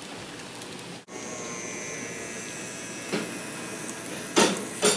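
N scale model train running along the layout track: a steady whirring hiss of small wheels and motor. After a cut about a second in it carries on with a faint high whine. Near the end comes a brief loud clatter.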